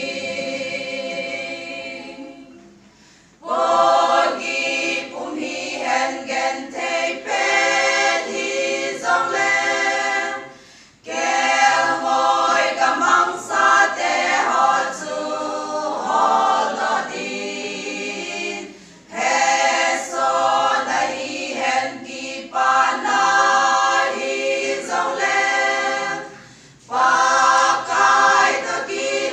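Women's choir singing unaccompanied, in phrases of about eight seconds with short breaks for breath between them.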